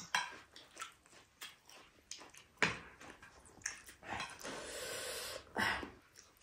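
A person eating: chewing and wet mouth noises with scattered small clicks, and a longer noisy stretch about four seconds in.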